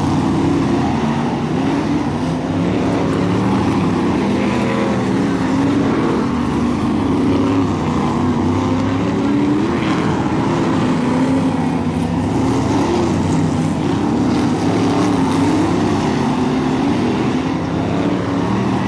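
Several BriSCA F1 stock cars' V8 engines racing together, their pitch rising and falling as the cars accelerate down the straights and lift for the bends.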